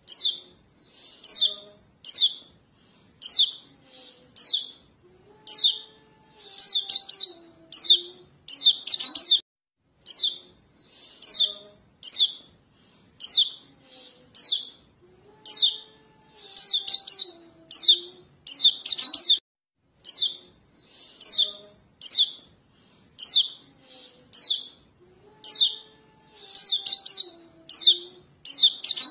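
Juvenile white-eyes (pleci, kecial kuning) calling for their parents: short, high chirps about once a second, sometimes in quick runs of two or three. It is a bird-trapping lure call, and the same sequence comes round again about every ten seconds.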